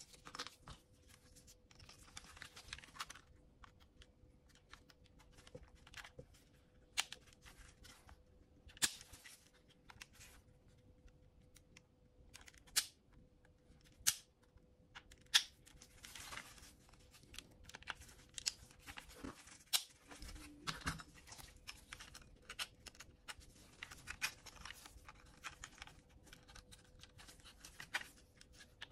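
Small clicks, taps and rustling from hands and small tools handling the plastic parts of a DJI Mini 3 Pro drone during a gimbal repair, scattered and irregular, over a faint steady hum.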